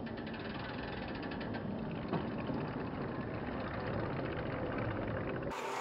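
Steady low rumbling noise. It cuts off abruptly about five and a half seconds in, giving way to a thinner, brighter background.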